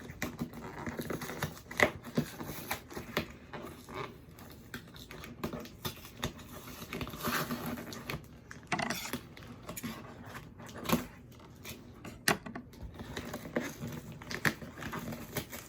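A cardboard shipping box being opened by hand: irregular clicks, taps and short scraping and rustling of cardboard and packing tape, with one sharper click about two seconds in.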